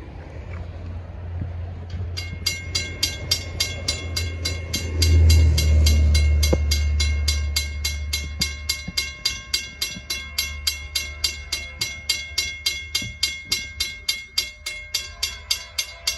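Railroad grade-crossing bell ringing in a steady rhythm of about two strikes a second, starting about two seconds in as the crossing signals activate for an approaching train. A low rumble runs underneath and swells through the middle.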